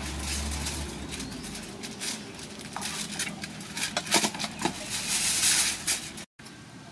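Aluminium foil crinkling and rustling as it is cut from the roll with scissors and smoothed flat by hand, with sharp snips and crackles, loudest about four to six seconds in. The sound drops out for a moment near the end.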